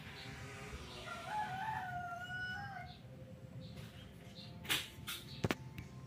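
A rooster crowing once, a wavering call of about two seconds, over a steady low hum from the running ceiling fan. A few sharp clicks come near the end.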